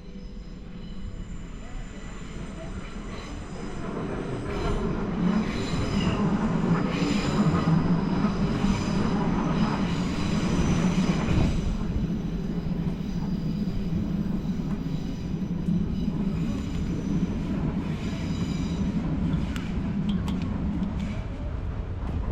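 A train crossing a steel railway bridge, growing louder over the first several seconds and then running loud and steady, with high squealing tones from the wheels on and off.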